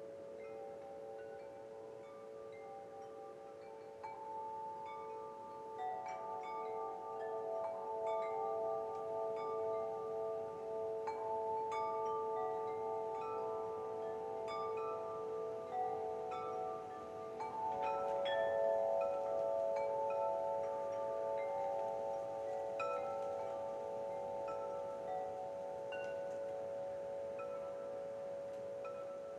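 Wind chimes ringing, many overlapping tones struck again and again and left to hang. They grow denser and louder from about four seconds in, peaking past the middle.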